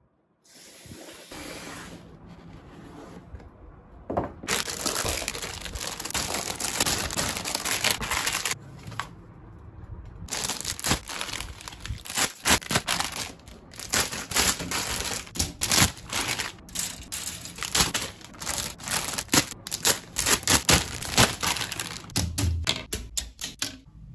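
Thin plastic bags crinkling and rustling as the bagged parts runners of a plastic model kit are unpacked, with sharp clicks and clacks of the plastic runners being handled. Soft handling noise at first, then about four seconds in the crinkling becomes dense and loud.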